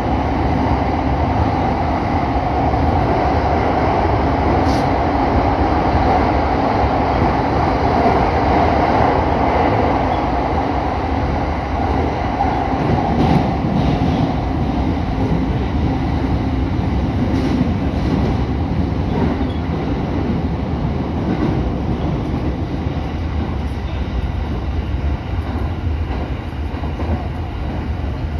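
Electric commuter train running through a tunnel, a steady rumble of wheels on rail heard from the driver's cab, with a few faint sharp clicks. The rumble thins out and drops a little after the train leaves the tunnel, about halfway through.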